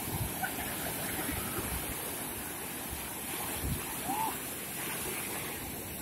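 Surf of a rough sea in a small storm: waves breaking and washing in a steady rushing noise, with low swells of rumble.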